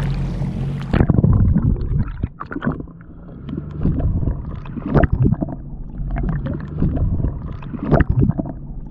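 Seawater splashing over an action camera at the surface, then muffled underwater sloshing and gurgling once it goes under about a second in, with irregular knocks and a low steady hum beneath.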